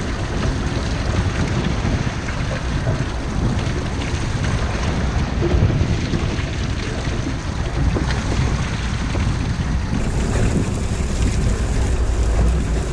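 Wind buffeting the microphone over the steady wash of a choppy sea against a boat's hull, with a hissier edge coming in near the end.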